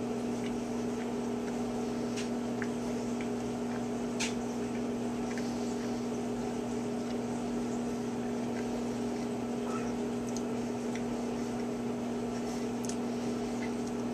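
Steady machine hum from a running appliance or fan, with a few faint scattered clicks.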